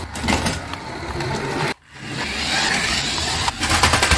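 Remote-control toy car running across a wooden floor, a steady motor whir with wheel noise. It cuts out sharply a little under two seconds in, then builds back up.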